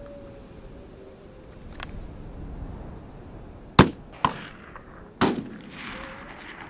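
Rifle shots fired at a wolf: a loud crack, a fainter crack just after it, then a second loud crack about a second and a half after the first, with a brief echo trailing it.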